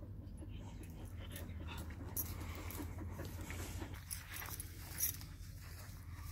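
Faint dog sounds: light panting with a few soft rustles and ticks, over a low steady hum.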